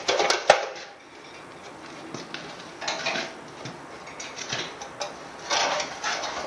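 Metal parts on a Bedford RL engine block being knocked and worked loose: two sharp metal strikes about half a second in, then bursts of clinking and rattling metal as a cover plate is worked free and lifted off the block near the end.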